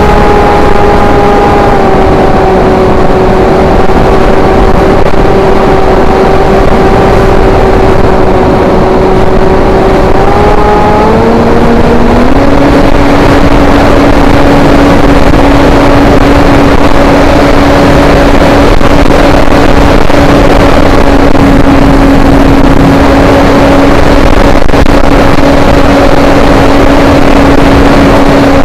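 Sky Shadow S800 foam flying wing's motor and propeller whining steadily in flight, heard through the onboard camera under heavy wind rush. The pitch sags slightly, then steps up about eleven seconds in as the throttle is opened, and holds there.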